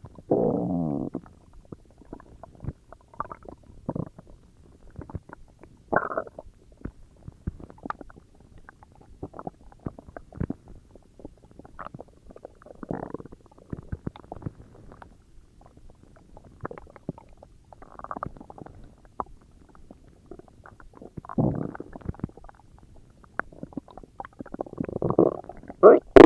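A human stomach growling and gurgling. It opens with one longer growl that falls in pitch, then many scattered small gurgles and pops, with louder gurgles about six seconds in, again past twenty seconds, and a burst of them near the end.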